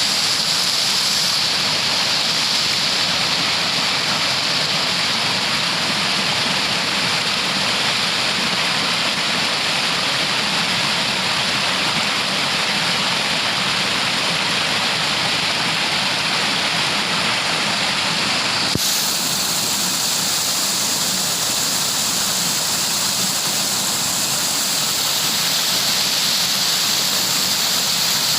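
Steady rushing of flowing water, a stream or waterfall, with no break. About two-thirds of the way through the sound changes abruptly to a brighter, hissier rush.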